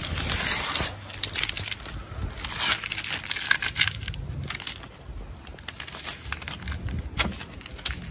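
Rustling, crinkling handling noise with scattered small clicks and scrapes, loudest in the first second.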